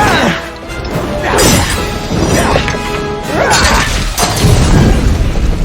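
Film soundtrack: action score with crashing impacts and sweeping tones.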